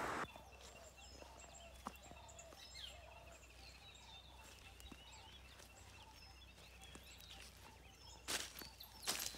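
Quiet morning garden ambience with several birds chirping and calling faintly throughout. Near the end come two brief rustling crunches of footsteps on dry fallen leaves.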